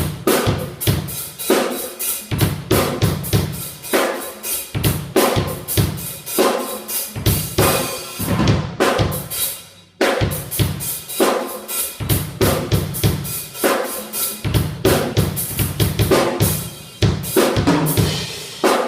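Drum kit playing a steady beat of kick and snare hits, thinning out briefly around nine to ten seconds in before picking up again.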